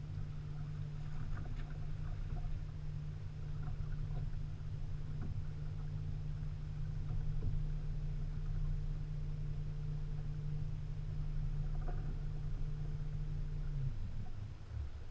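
Steady low hum of a small boat's motor running at low speed, with a few light knocks, cutting off about a second before the end.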